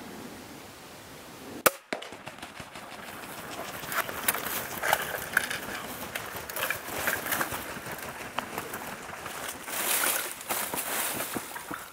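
A crossbow shot, the TenPoint Havoc RS440 firing once with a single sharp snap a little under two seconds in. Then Rio Grande turkeys scatter through dry leaves and brush: a long run of crunching, scratching and wingbeats that rises and falls in waves.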